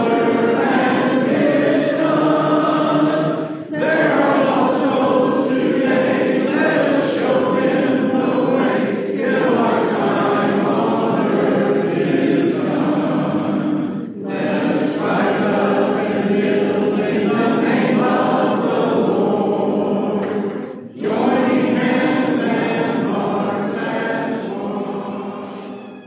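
Church congregation singing a hymn a cappella, in long phrases with short breaks between them, fading out near the end.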